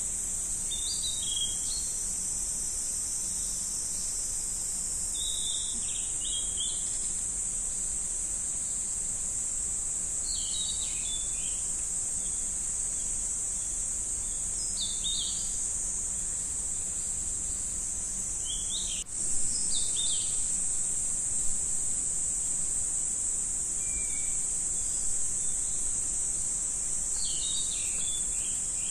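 Steady high-pitched drone of insects, with short bird chirps every few seconds and a couple of brief clicks about two-thirds of the way through.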